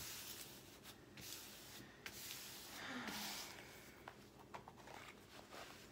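Hands smoothing a diamond painting canvas flat, palms sliding over its protective cover film in soft swishes and faint crinkles. The strongest sweep comes about 3 seconds in.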